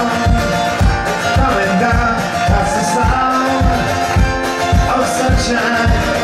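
Two acoustic guitars strummed together in a steady, upbeat rhythm, with low thumps marking the beat.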